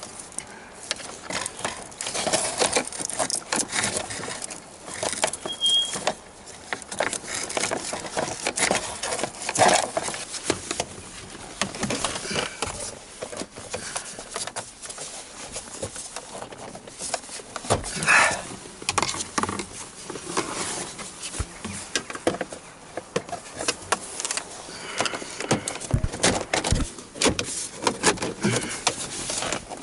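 Plastic dashboard trim of a Toyota Camry being pried loose with a trim tool: irregular clicks, creaks and scrapes of clips and panels with hand-handling noise, and a short high squeak about six seconds in.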